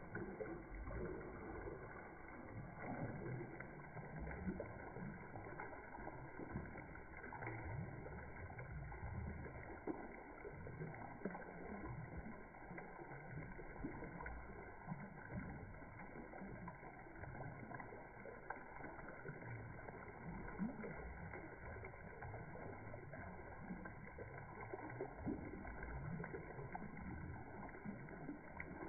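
Small submersible fountain pump in a tub of water, its jets splashing steadily back onto the water surface.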